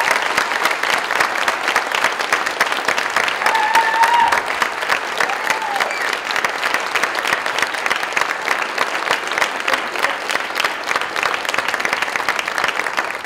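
Theatre audience applauding steadily after a dance performance, with a short call or two from the crowd about four seconds in.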